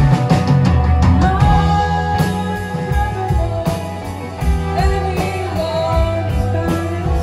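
Live rock band playing with electric guitars, bass guitar and drum kit, the drums hitting steadily under sustained guitar notes.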